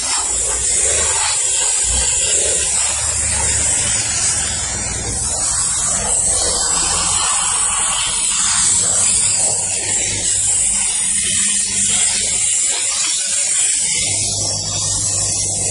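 Steam car-wash machine's handheld nozzle hissing steadily as it jets steam over a car's door sill and door frame, with a steady low hum underneath.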